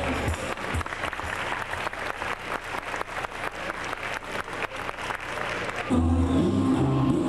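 An audience applauds for about six seconds after the music stops. Music with a heavy bass beat starts again near the end.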